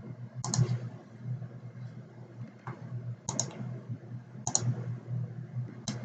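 Computer mouse clicking, about five times with several quick double-clicks, over a faint steady low hum.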